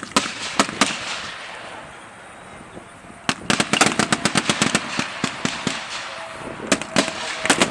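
Machine guns firing blanks: a few single shots, then from about three seconds in long rapid bursts of automatic fire, with a brief lull and another burst near the end.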